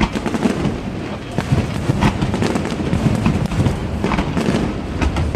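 Aerial fireworks going off in rapid, irregular bangs and crackles over a dense low rumble.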